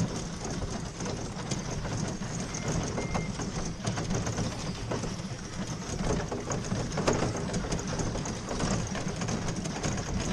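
Steady rolling rumble and rattle of a road case carrying a digital mixing console being moved across grass, with small clicks and knocks from the case and its contents throughout.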